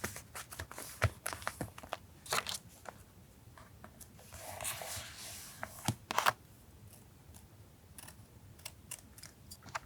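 Paper being handled for a journal collage: scattered light taps and crinkles, with a longer rasping stretch of paper about four seconds in, followed by a couple of sharp taps.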